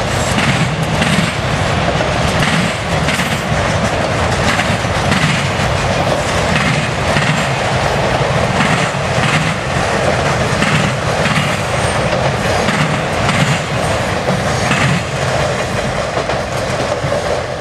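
Norfolk Southern freight train cars rolling past at close range: a loud, steady rumble of steel wheels on the rails, with a run of clicks and clacks as the wheels pass over the rail joints.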